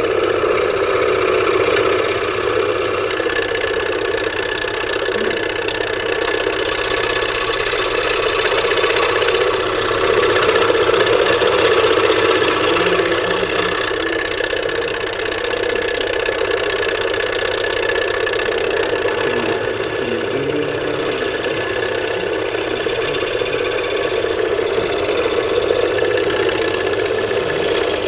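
Scroll saw running steadily, its up-and-down blade cutting through a thin wooden board.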